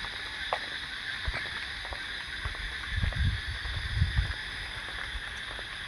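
Rainy night ambience: a steady chorus of crickets with water trickling and dripping, and a few low rumbles about three and four seconds in.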